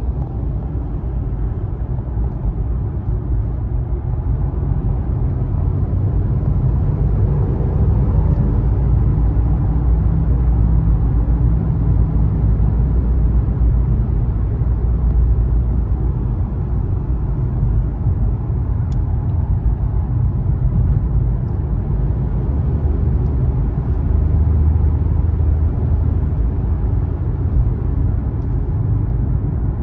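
Steady low rumble of a car's road noise, heard from inside the cabin while driving along a freeway.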